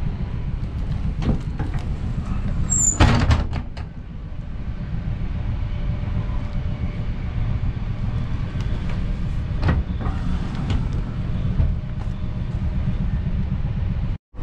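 Steady low running rumble of a V set double-deck electric intercity train, heard from inside the carriage. A loud clunk and rattle comes about three seconds in, and a short knock follows near ten seconds.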